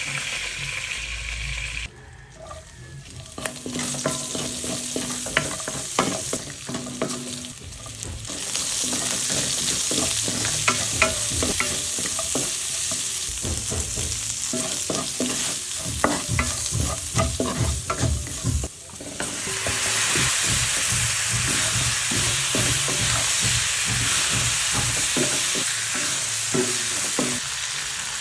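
Food sizzling as it fries in a pan while a utensil stirs it, scraping and knocking against the pan again and again. The sizzle drops away briefly about two seconds in and again about two-thirds of the way through, then comes back louder.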